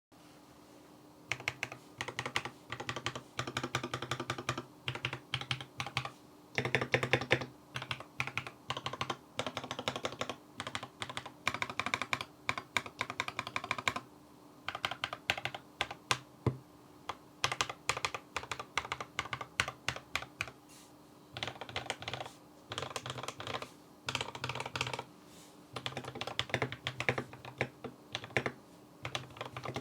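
Mechanical keyboard with Tecsee Carrot linear switches and 9009 keycaps being typed on in fast runs of keystrokes, with a few short pauses between bursts. A faint steady hum sits underneath.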